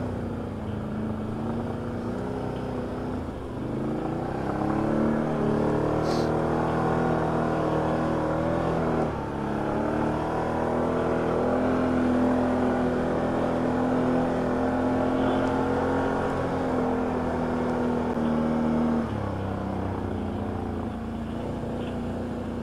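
Can-Am ATV's V-twin engine running under throttle. Its pitch rises about four seconds in, dips briefly near nine seconds, holds steady, then drops back near the end. A single sharp click sounds about six seconds in.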